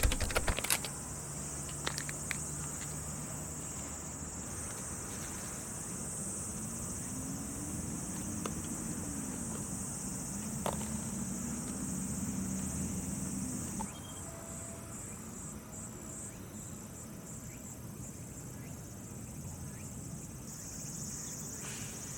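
A steady, high-pitched chorus of insects trilling without a break. A few clicks come near the start, and a faint low hum rises and falls in the middle.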